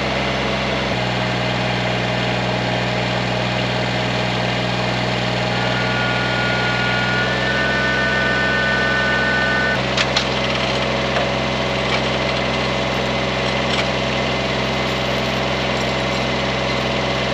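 An engine running steadily at idle, its note shifting about a second in and again a little past halfway, with a thin higher whine just before the second change. A few light knocks and clicks follow in the second half.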